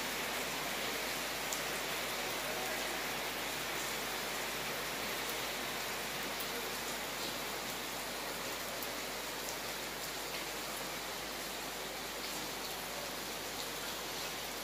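Heavy rain falling steadily on a wet street, an even hiss with scattered light ticks of single drops.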